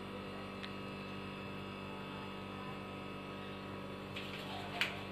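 Steady electrical hum, with a faint scuffle and a short click near the end.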